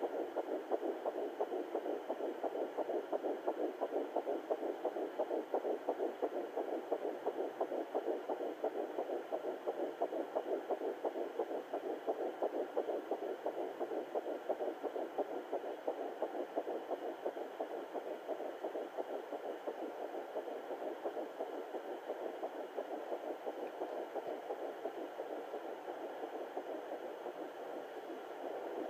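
Fetal heartbeat at 9 weeks picked up by a handheld Sonoline B fetal Doppler: fast, even pulses of whooshing sound through the monitor's speaker, growing a little fainter near the end.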